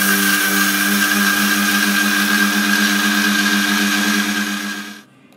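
Electric mixer-grinder running steadily, grinding sugar into powder in its stainless-steel jar, with a constant motor hum and whine. It is switched off and cuts out just before the end.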